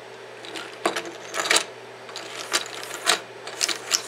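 Irregular clicking and clattering of a 3D-printed PLA print-in-place flexi fox as its jointed segments are bent and swung about and knock on the printer's steel flex plate, with the clicks coming faster near the end.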